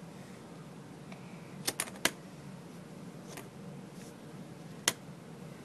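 A few sharp clicks and taps of small plastic toys being handled: three close together about two seconds in, then single ones later, over a low steady hum.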